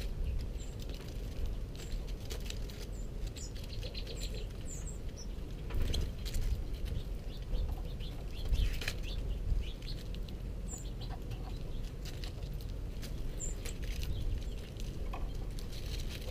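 Small songbirds at a seed-covered feeding table: wings fluttering as birds fly in and out, light clicks and taps of feeding on the boards, and scattered short, high chip notes. A steady low rumble runs underneath.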